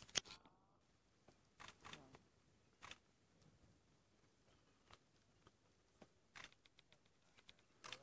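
Near silence, broken by a few scattered short clicks and light crackles, the loudest just after the start.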